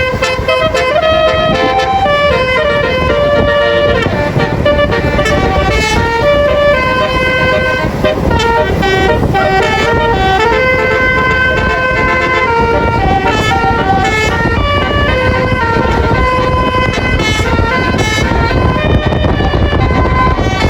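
A bus's telolet basuri musical air horn plays a melody of held notes that step up and down in pitch, over the low rumble of engine and road noise.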